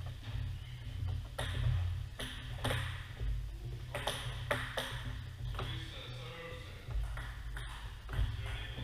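Table tennis balls bouncing: a dozen or so sharp pocks at uneven intervals off paddles and tables, over faint background voices and a steady low hum.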